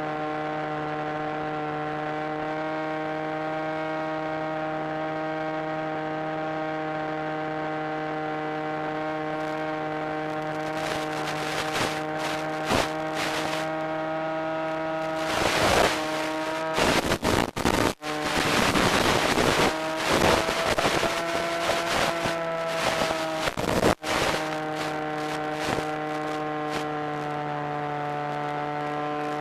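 Steady pitched whine of an FPV aircraft's electric motor and propeller, heard through the video link's audio. Partway through, crackling static breaks in for over ten seconds, with two brief cutouts.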